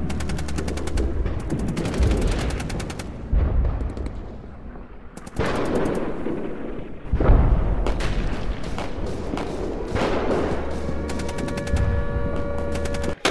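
Automatic gunfire in repeated bursts of rapid shots, with short pauses between the bursts.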